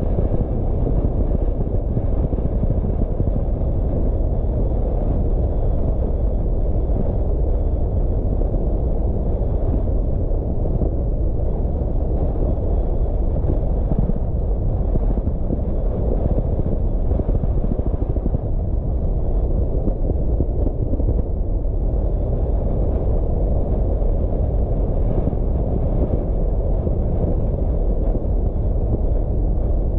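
A car driving steadily on the road: a continuous low rumble of tyre, engine and wind noise that holds even throughout.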